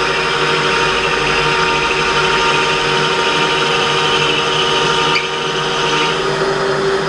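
Metal lathe drilling through aluminium with a large 23 mm drill bit fed from the tailstock under flood coolant: a steady, high-pitched cutting noise over the running lathe. The bit is getting blunt from years of use.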